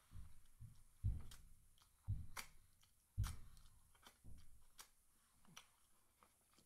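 Close-up mouth sounds of someone eating fried chicken: soft low thuds of chewing about once a second over the first three seconds or so, and sharp wet clicks of lips smacking and fingers being licked clean of gravy throughout.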